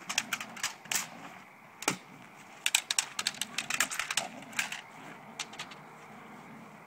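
Clatter stick rattling in quick runs of sharp clacks, with one heavier crack about two seconds in; the clacking dies away about two-thirds of the way through.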